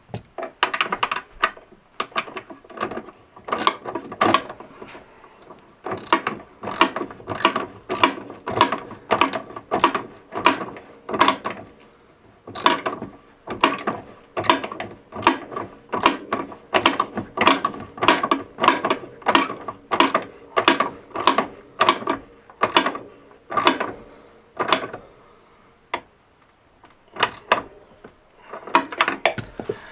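Ratchet wrench clicking in repeated strokes, mostly about two a second with a couple of short lulls, as the exhaust's mounting bolts are tightened down.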